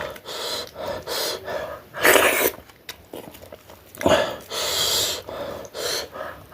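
A person panting and hissing air sharply in and out through the mouth in about five bursts, the loudest about two seconds in: the burn of very hot Dalle chili.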